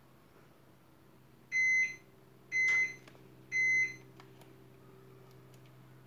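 Three identical short electronic beeps, about a second apart, over a low steady hum.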